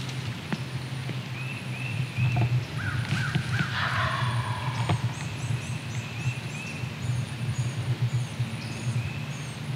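Woodland songbirds singing repeated short chirping phrases, with a louder, harsher bird call of several quick notes about three to four seconds in.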